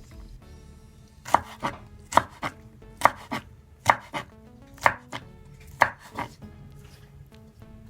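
Knife chopping food by hand: about a dozen sharp strikes falling in pairs, roughly one pair a second, starting just over a second in and stopping about six seconds in.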